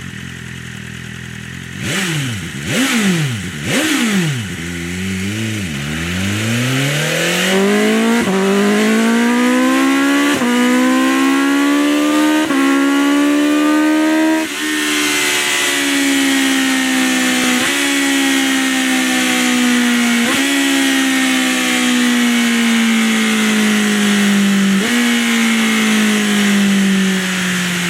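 BMW superbike's inline-four engine idling, then revved sharply three times about a second apart. It then pulls away with the engine note climbing in steps through several gear changes, and over the last half the note falls in stages.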